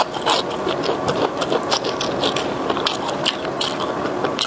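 Close-up chewing of crispy deep-fried breaded food, a rapid irregular run of crunches and crackles picked up right by a lapel microphone.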